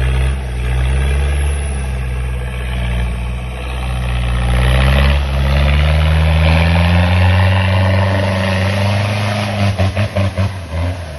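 Off-road 4x4 vehicle engine working hard, its pitch climbing slowly as the revs build. Near the end it pulses rapidly for about a second before falling away.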